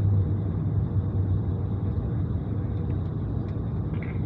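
Steady low rumble of cabin noise inside an Airbus A220 airliner, the engine and airframe drone heard from a passenger seat.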